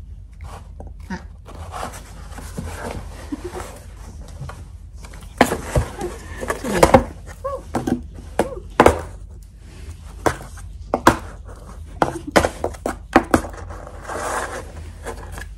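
Rustling and scraping with a run of irregular sharp taps and knocks, loudest in the middle: a string wand toy being flicked against a cardboard box and the floor while cats swat at it.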